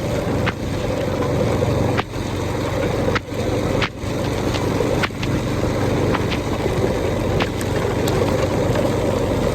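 Motorcycle or scooter engine running steadily while riding, heard with wind and rain noise, and broken by a few brief cut-outs and clicks.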